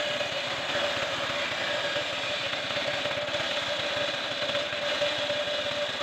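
Bench resaw (homemade table saw) ripping a wooden plank lengthwise: the spinning blade gives a steady whine over the noise of the cut.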